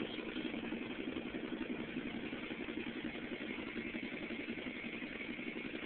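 An engine idling steadily, with an even, rapid pulsing.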